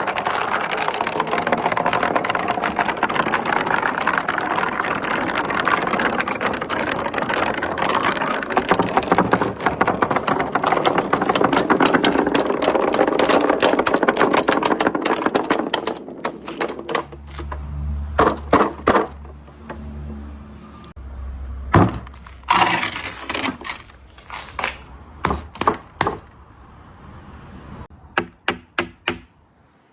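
Many marbles rolling and clattering down a marble run in a dense, continuous rattle. About halfway through it thins out to a low rolling rumble and separate clicks and knocks as the last marbles come down, and it dies away just before the end.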